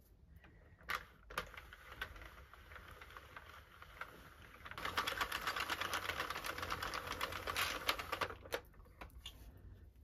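Sentro circular knitting machine being hand-cranked while casting on: its plastic needles and carriage make a rapid clicking clatter. A few separate clicks come first, then the clatter is soft and turns loud and dense from about halfway through, stopping shortly before the end.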